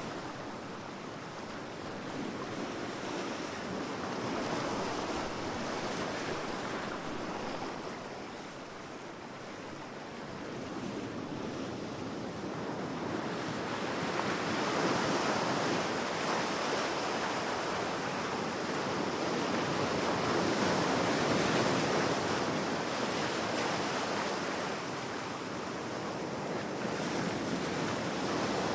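Sea waves washing onto a beach: a steady surf that slowly swells and eases, growing louder about halfway through.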